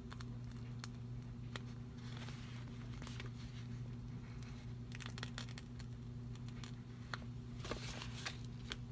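Sheets of paper planner stickers being handled: light rustling and crinkling with scattered small taps, heaviest near the end, over a steady low hum.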